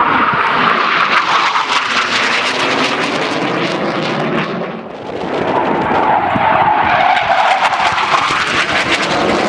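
Jet engine of a straight-winged military jet with wingtip tanks flying a display pass: a loud rush with a high whine. It dips briefly about halfway, then swells again with a whine that slowly falls in pitch.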